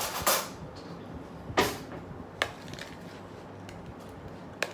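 A spoon scraping and knocking against a mixing bowl: a short scrape at the start, a sharper knock about a second and a half in, and a couple of lighter clicks later.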